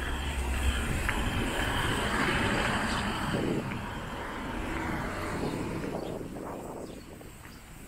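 A car driving past on the road: its tyre and engine noise swells about two seconds in, then fades away over the last few seconds.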